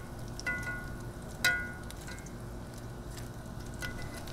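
Breaded mac and cheese cubes sizzling in shallow oil in a cast iron skillet. Metal tongs clink against the pan a few times as the cubes are turned, with the loudest clink about a second and a half in.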